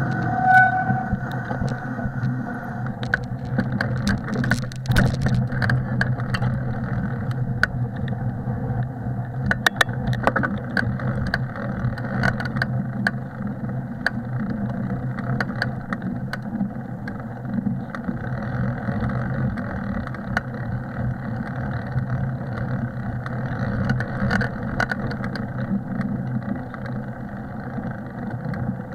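Bicycle riding through snow: a steady low rumble from tyres and wind on the mic, with frequent clicks and rattles from the bike over bumps. There is a short squeak about half a second in.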